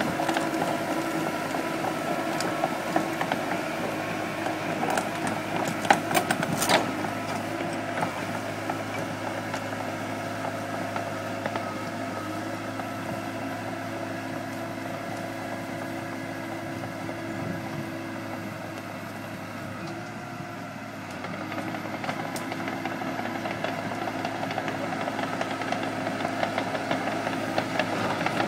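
Mitsubishi BD2H crawler bulldozer's diesel engine running steadily under load, with a few sharp knocks about six seconds in. It gets quieter as the machine works away and louder again near the end as it comes back.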